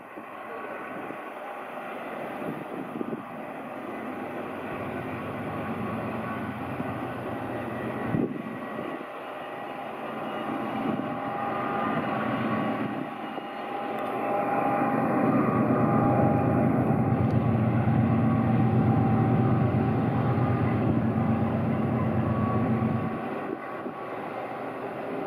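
GE ES44C4 diesel locomotives hauling a long freight train up a mountain grade, their engines running under load as a steady drone with faint whining tones above it. The drone grows louder from about halfway, then drops sharply near the end.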